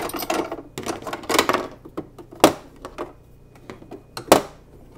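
Small plastic and metal parts of a Singer Simple sewing machine's bobbin area being handled and set down on a mat: scraping, rattling and clicks, with two sharp clicks, one about halfway through and one near the end.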